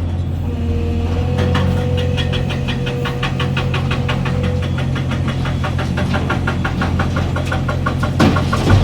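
Heavy diesel engine running steadily with a rapid, even clatter. A faint steady whine sounds from about half a second to four and a half seconds in, and a single louder knock comes near the end.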